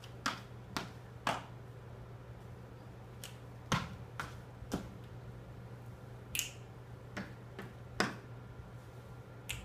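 Children's body percussion: about a dozen sharp snaps in small groups roughly half a second apart, over a low steady hum.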